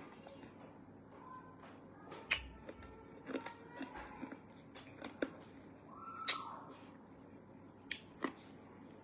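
Fingernails tapping on a smartphone screen: scattered soft clicks at an uneven pace, the sharpest about six seconds in.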